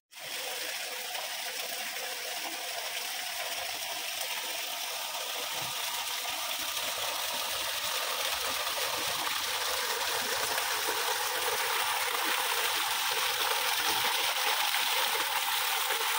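Small spring-fed waterfall spilling from a stone channel and splashing into a shallow pool: a steady rush of falling water that grows slightly louder toward the end.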